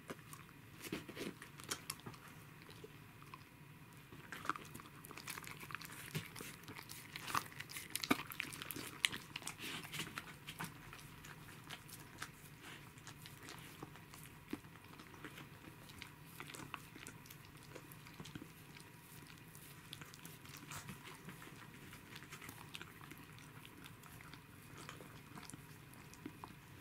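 Pembroke Welsh corgi chewing and smacking on raw fish (sashimi) taken from a hand: a long run of quick wet clicks and mouth smacks, densest in the first half and thinning out later.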